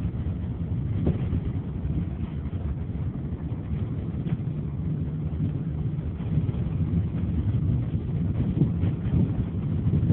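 Renault Logan 1.6 on the move: a steady low rumble of engine and road noise, with a few faint knocks about a second, four seconds and nine seconds in. These are likely the knock from the front of the car that is being shown.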